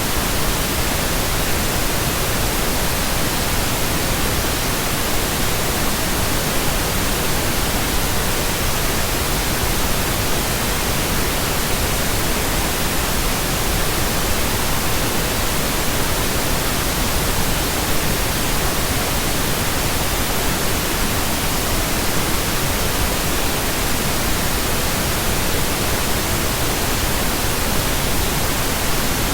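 Computer-generated pink noise: a steady, even hiss that does not change.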